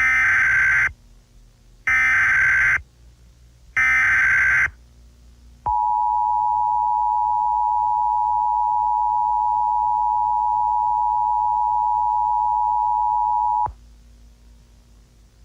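Emergency Alert System tones: three short bursts of digital SAME header data, about two seconds apart, then the two-tone EAS attention signal at 853 and 960 Hz, held steady for about eight seconds before cutting off.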